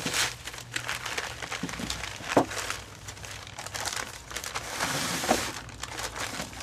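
Packing paper crinkling and rustling as it is unfolded and pulled open by hand, with a couple of louder crackles.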